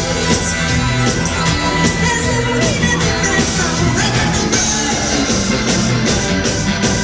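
Two-tone ska band playing live through a PA, with a lead vocal singing over guitar, bass, drums, keyboard and saxophones. It is loud and steady throughout.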